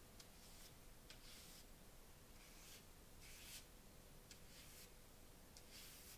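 Faint swishes of a flat paintbrush stroking watercolour across a paper linocut print: several short strokes, roughly one a second, the strongest about halfway through.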